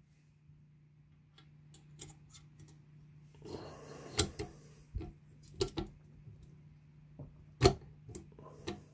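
Scattered metallic clicks and clacks of a Remington 700 bolt being fitted with a no-go headspace gauge, slid into the action and worked by the handle, with two sharper clacks about four and seven and a half seconds in. The bolt will not close on the no-go gauge, a sign that the headspace is correct.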